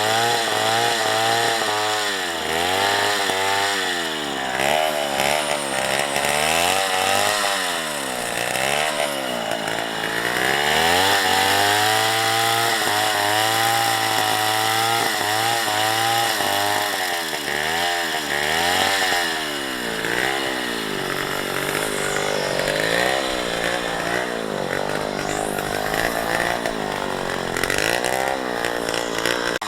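Two-stroke chainsaw cutting wood, its engine pitch rising and falling again and again as throttle and load change. Right at the end the pitch falls away as the throttle is let off.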